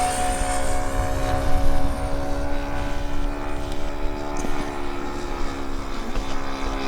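RC 3D-printed F-14 Tomcat model jet flying with a motor whine. The whine eases slightly in pitch and fades in the first second or so, leaving a steadier, lower hum as it comes in to land.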